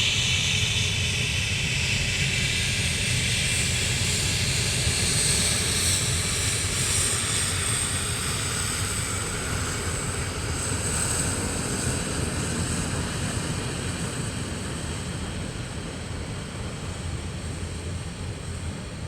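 Aircraft engines decreasing in intensity on a landing approach: a steady rush with a high whine that slowly falls in pitch as the whole sound gradually fades.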